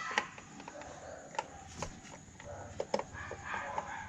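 Scattered sharp clicks and taps from hand work on a scooter's tail-light assembly while a brake-light bulb is being fitted.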